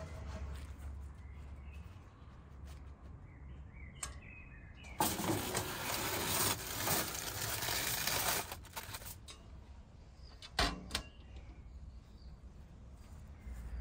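Foil-wrapped tray slid into a rusty steel barrel oven: foil crinkling and metal scraping for about three seconds, then a single clank a couple of seconds later as the steel door is shut. Birds chirp faintly.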